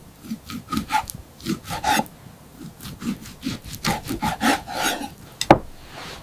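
Hands-on food preparation before cooking: a run of short rubbing and scraping strokes, about two a second, then one sharp knock about five and a half seconds in.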